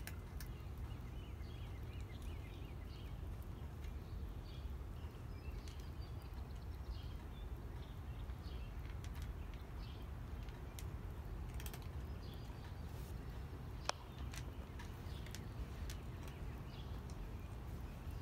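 A cat chewing and crunching its food, a scatter of small clicks over a steady low rumble, with one sharper click about fourteen seconds in.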